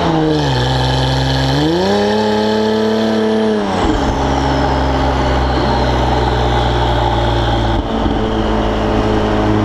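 Exhaust of a Porsche Gemballa Avalanche GTR 650 EVO R's twin-turbo flat-six on the move. The engine note falls just after the start, climbs again about two seconds in and holds, then drops sharply about four seconds in and settles to a steady lower drone.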